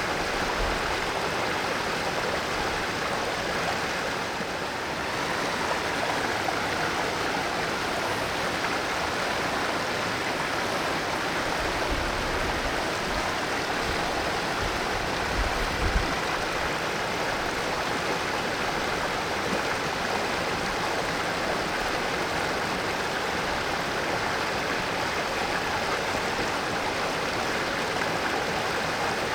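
Mountain valley stream flowing steadily over rocks, an even rush of water, with a couple of brief low bumps about halfway through.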